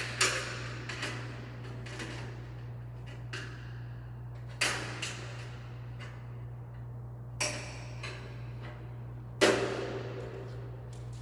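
Light-gauge steel framing knocking and clanking as the box header is handled and adjusted: a few sharp metallic knocks with short ringing, the loudest about nine seconds in.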